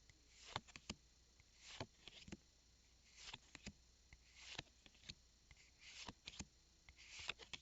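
Faint handling of Pokémon trading cards as a pack is flipped through. Soft swishes of cards sliding over one another mix with small clicks, a few every second.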